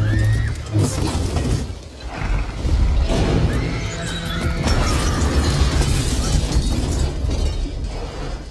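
Film score music playing over the sound effects of a tyrannosaur smashing a car: glass shattering and deep booms.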